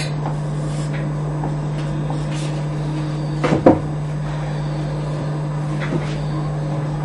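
Steady low electrical mains hum, with a brief clatter of knocks about halfway through and a faint tap near the end.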